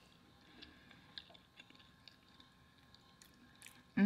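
Soft close-miked chewing of a mouthful of food, with small wet mouth clicks. Right at the end comes a loud hummed "mmm" of enjoyment that falls in pitch.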